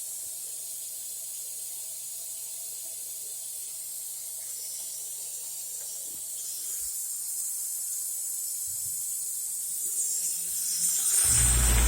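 CNC router spindle running with a steady high hiss-like whine, being checked for runout after its spin direction was changed. Near the end a much louder low hum starts and holds.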